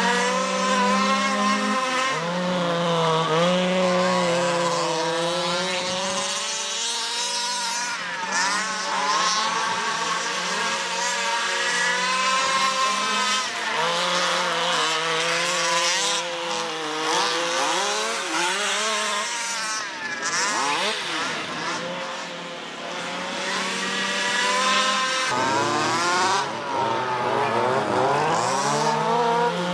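Several large-scale RC cars' small two-stroke petrol engines revving up and down as the cars race around the track, their pitches rising and falling and overlapping one another, a little quieter about two-thirds of the way through.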